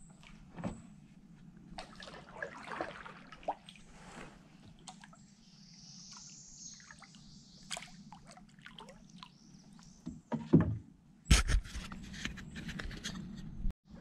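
Water sloshing and trickling around a kayak hull, with light knocks and clicks of gear being handled. Two loud thumps come about ten and eleven seconds in.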